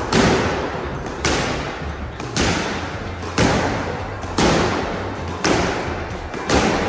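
Squash racket smacking the ball against the court wall in a steady solo rally, about one sharp hit a second, each ringing briefly off the hard walls.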